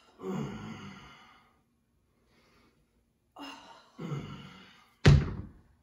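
Heavy breathing during a kettlebell exercise: two long, fading exhales like sighs, each with a shorter breath before it. Near the end comes one sudden, loud burst, the loudest sound of the stretch.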